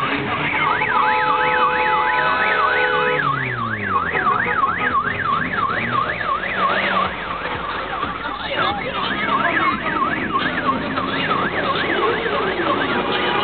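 Electronic siren in a fast yelp, its pitch sweeping up and down about three to four times a second. It breaks off about halfway through and starts again more faintly, while a lower sound falls in pitch under it in the first few seconds.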